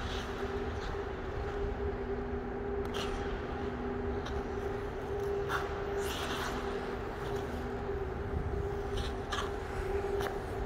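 Steady mechanical hum of an indoor ice rink, with a few short scrapes of figure skate blades on the ice scattered through it.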